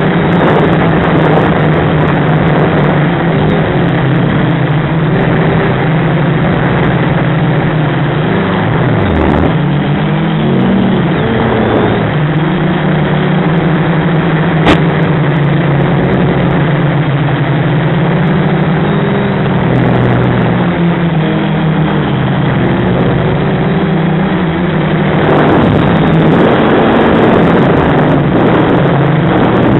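FPV quadcopter's electric motors and propellers buzzing steadily over a rush of wind noise. The pitch dips and swings up and down for a few seconds near the middle as the throttle changes. There is one sharp click about halfway through.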